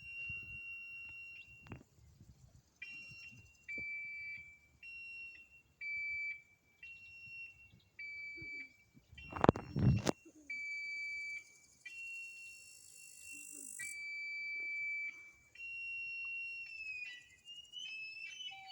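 A series of high, steady tones, each lasting about half a second to two seconds with short gaps, alternating between two close pitches. One loud thump comes about halfway through.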